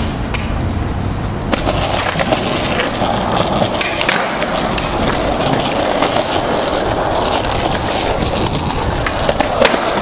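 Skateboard wheels rolling on concrete, a steady rumble, with a few sharp clacks of the board.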